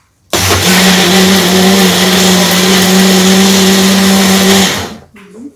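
Countertop blender running on a jug of eggs, mustard, vinegar and olive oil, emulsifying them into mayonnaise. It starts sharply, runs at a steady pitch for about four seconds, then stops.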